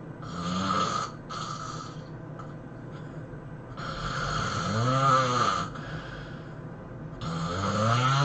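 A person snoring heavily: two short snores in the first two seconds, then two long, louder snores about four seconds in and near the end, each with a buzzing pitch that rises and then falls.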